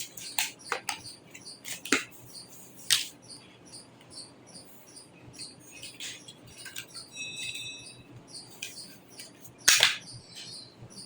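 Scattered sharp clicks and taps of hands handling desktop computer parts, with a brief metallic ring about seven seconds in and one loud click near the end.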